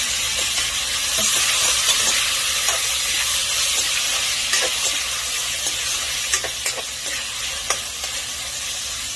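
Chopped tomatoes and onions sizzling in hot oil in a metal wok, stirred with a metal ladle that clinks against the pan several times. The sizzle is steady and loud, easing slightly towards the end.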